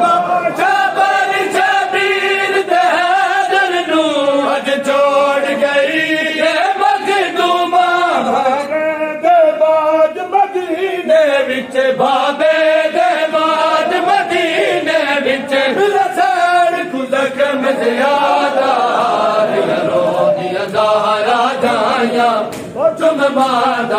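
A group of male noha reciters chanting a Punjabi noha, a Shia lament, together: one slow melodic line, held and bending in pitch, sung without pause.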